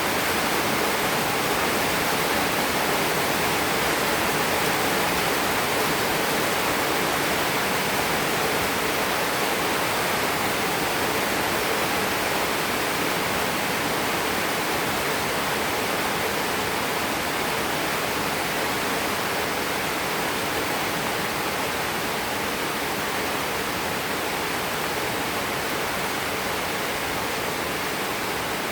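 Steady rain falling and splashing, an even hiss of water that eases slightly toward the end.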